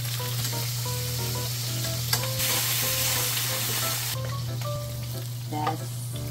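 Fish fillets sizzling as they fry in oil in a frying pan on a gas hob, the sizzle swelling louder for about two seconds in the middle as the fish is turned with a wooden spatula. A few light knocks of the utensil against the pan.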